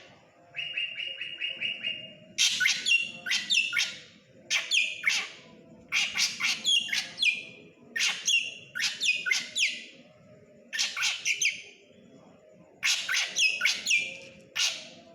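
Drongo (srigunting) in full, vigorous song: repeated bursts of loud, sharp notes that sweep downward, phrase after phrase with short pauses between. Near the start comes a quick, even trill of short notes.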